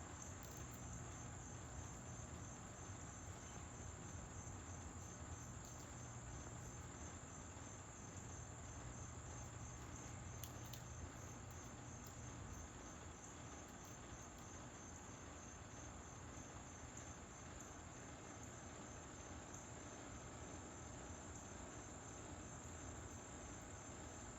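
Faint, steady chorus of insects chirping, a high, evenly pulsing trill like late-summer crickets.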